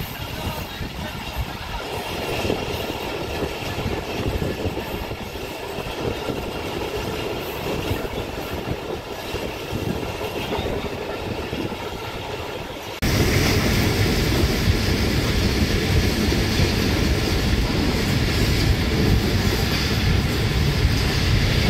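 Karakoram Express passenger train running on the rails, a steady rumble of wheels and track. About thirteen seconds in the sound suddenly gets louder and fuller.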